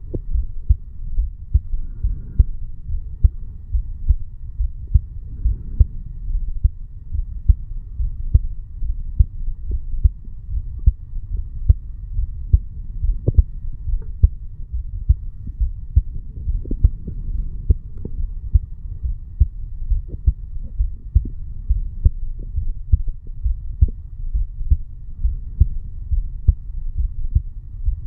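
A man's heartbeat recorded over the bicuspid (mitral) valve area: a steady run of low, dull beats repeating evenly.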